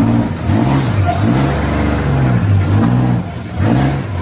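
Off-road vehicle's engine revving, its pitch climbing and falling again several times in quick succession.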